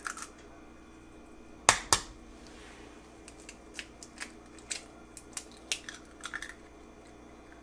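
Eggshells cracking as eggs are opened onto a hot nonstick griddle plate: two sharp cracks about two seconds in, then a run of small, fainter shell clicks.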